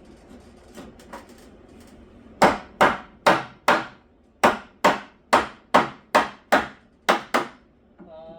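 Hammer driving nails into a wooden stud: two light taps, then a dozen hard blows at about two and a half a second with a short pause partway through.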